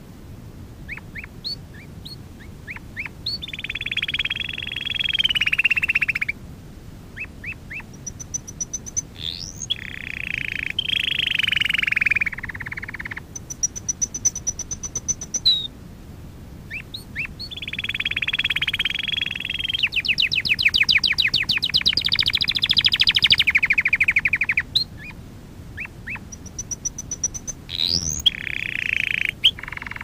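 Domestic canary singing: a run of rolling trilled phrases, each a second or three long, broken by short chips, quick rising notes and brief high whistled notes. About two-thirds of the way through comes a longer, very fast trill.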